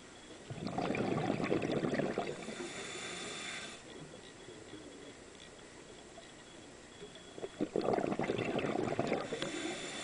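Scuba diver breathing through a regulator underwater: two long bursts of exhaled bubbles about seven seconds apart, each ending in a brief hiss.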